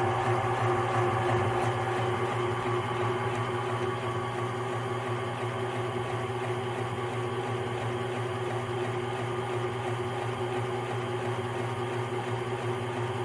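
Arno Lavette Eco tanquinho's motor running steadily, a constant hum driving the agitator through a newly fitted belt, working again after the repair. It is slightly louder in the first couple of seconds.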